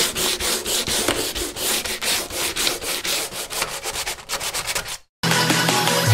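Rough rim of a paper-pulp flowerpot being rubbed down with a hand-held block, a scraping sound in quick back-and-forth strokes, about three to four a second. The strokes stop about five seconds in, and after a brief gap music with a heavy bass starts.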